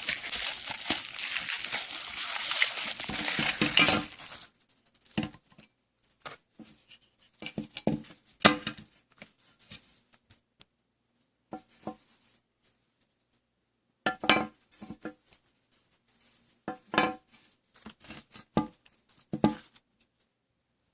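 Packaging of a memory kit crinkling for about four seconds, then stopping abruptly, followed by scattered light clicks and taps as the package is handled.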